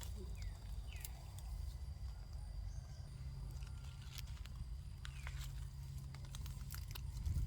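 Crackling and rustling of footsteps and handling in forest leaf litter, scattered clicks over a low rumble on the microphone, with a few short falling chirps.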